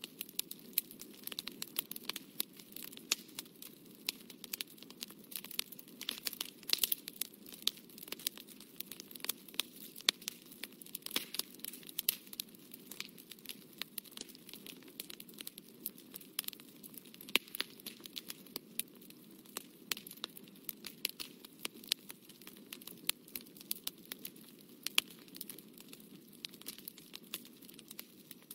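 A fine brush dabbing and scratching on watercolour paper, heard as dense, irregular faint ticks and crackles over a steady low room hum.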